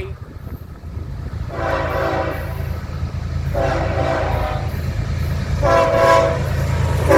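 BNSF ES44DC diesel locomotive's multi-chime air horn sounding a salute of short, evenly spaced blasts, four of them about two seconds apart, over the steady low rumble of the approaching locomotive and train.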